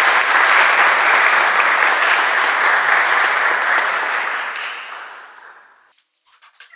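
Audience applauding, fading out from about five seconds in and stopping near the end.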